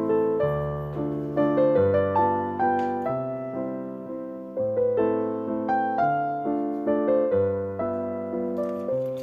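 Background piano music: a melody of struck notes that fade away, over low chords.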